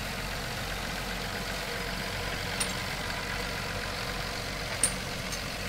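Heavy engine of railroad track-maintenance equipment running steadily with a low hum, with two short clicks, the second louder, near the middle and near the end.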